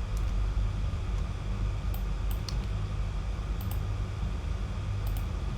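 A few isolated computer keyboard keystrokes, in small clusters about two, three and a half and five seconds in, over a steady low background hum.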